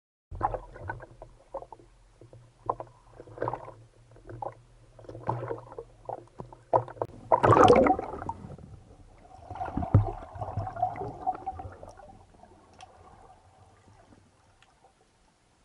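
Water sloshing and gurgling around the camera in irregular splashes, with one louder gurgling rush about halfway through, over a low steady hum.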